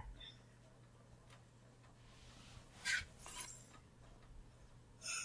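Mostly quiet room with faint handling noises from a tablet being used on the floor: a brief rustle just before three seconds in and another near the end.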